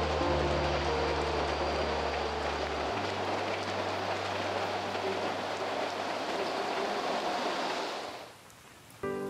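Steady hiss of rain falling, which cuts off sharply about eight seconds in. Low sustained music tones sound beneath it for the first three seconds, and a few spaced musical notes begin near the end.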